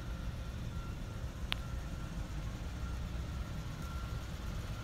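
Outdoor background rumble of distant traffic with a faint, high, repeated beep every half second to a second, and a single sharp click about a second and a half in.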